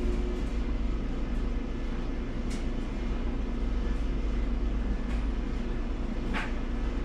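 Steady low mechanical hum of running laundry machinery, with a few faint light clicks scattered through it.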